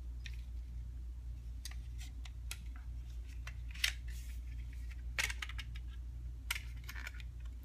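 Scattered light clicks and knocks of hands working at a new airsoft upper receiver, trying to free a part that will not release. A steady low hum runs underneath.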